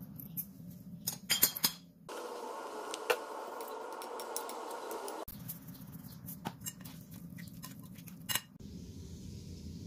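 A metal fork and a plastic spoon toss a leafy salad in a ceramic bowl. The utensils clink and tap against the bowl in scattered clicks: a quick cluster about a second in, then single taps, the sharpest near the end. Steady background noise runs through the middle stretch.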